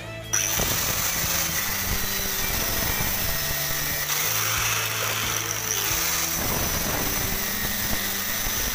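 Angle grinder with a thin abrasive cut-off disc cutting into a jammed steel drill chuck, starting a moment in and running steadily as a high whine with a grinding hiss.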